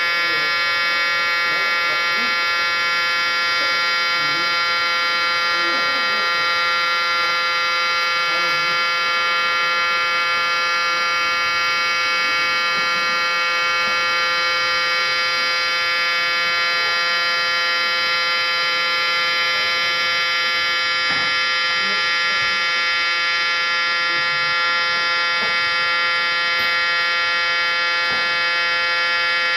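Outdoor warning siren sounding a steady tone that holds one pitch, neither rising nor falling.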